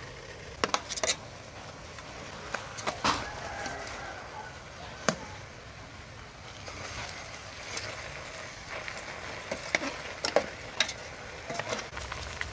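Dark soy braising liquid simmering in a large aluminium pot, with a metal ladle clinking against the pot now and then.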